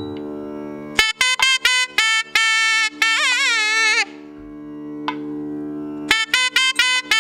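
Nadaswaram playing a Carnatic phrase over a steady drone: a run of quick separate notes starting about a second in, then a long note bent up and down in wide ornaments, a lull with only the drone, and the phrase starting again near the end.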